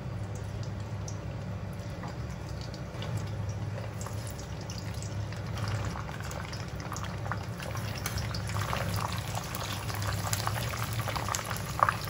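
Dried beancurd skin sheets frying in hot oil in a wok, bubbling with scattered crackles and pops that grow more frequent about halfway through. A steady low hum runs underneath.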